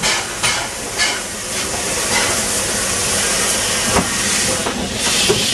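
Steam hissing steadily from around the wheels and cylinders of the LNER A4 Pacific locomotive 60019 Bittern, with a few short louder gusts in the first second. A single knock comes about four seconds in.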